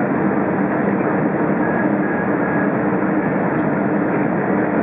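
Cabin noise of an Airbus A320 airliner descending on approach, heard from inside the passenger cabin: the steady rush of engines and airflow with a low, even drone underneath.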